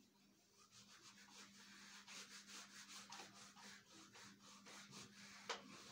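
Faint rubbing of a handheld eraser wiping a whiteboard in quick, repeated back-and-forth strokes, starting about half a second in and stopping near the end.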